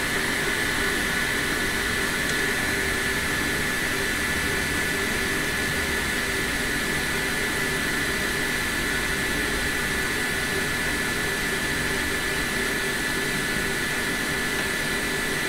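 Steady whirring hiss of a small fan or blower, with a constant high whine on top and no change in speed.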